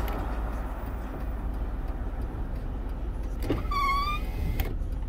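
Steady low rumble inside a car's cabin. About four seconds in comes a brief, wavering high-pitched squeak, with a couple of faint knocks around it.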